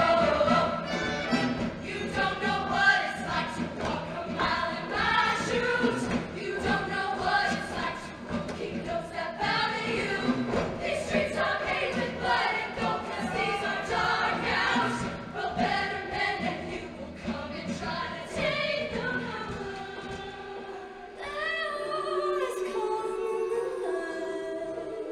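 Show choir singing an upbeat number over a steady beat. About four-fifths of the way through, the beat drops away and the voices hold longer, sustained notes.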